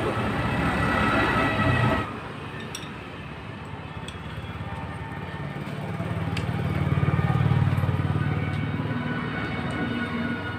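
Low, fast-pulsing engine rumble that swells for a few seconds and then eases off, with a few faint metal clicks.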